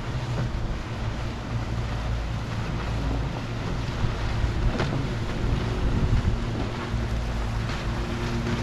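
Motorboat engine running steadily as the boat cruises past offshore, with wind buffeting the microphone and small waves washing against the shore rocks.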